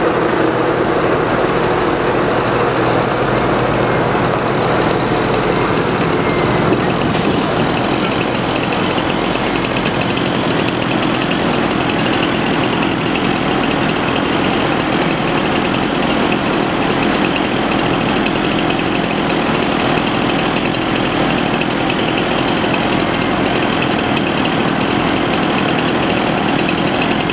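Log truck's diesel engine running steadily under load, powering a Prentice knuckle-boom grapple loader as it lifts large ash logs onto the truck.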